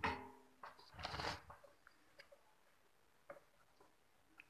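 Workbench handling noises while wiring a circuit board: a short ringing knock at the start, a louder rustle about a second in, then a few faint clicks.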